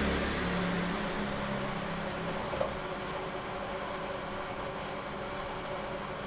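Steady mechanical background hum, with a motor vehicle's engine rumbling and fading away over the first two or three seconds, and one light click midway.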